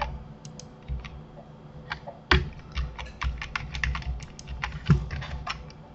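Computer keyboard and mouse clicking in irregular runs as Blender shortcuts are entered, with two heavier key strikes about two and five seconds in, over a faint steady low hum.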